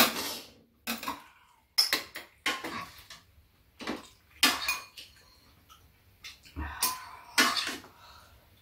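Metal spoons scraping and clinking against a frying pan and bowls as fried rice is scooped and stirred: a string of short, irregular clatters.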